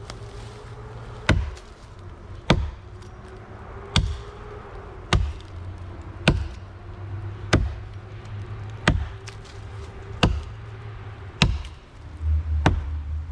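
Axe chopping into a small, hollow tree trunk to cut the notch for the felling hinge, with short, choked-up swings. There are about ten sharp strikes, evenly spaced at a little over one a second.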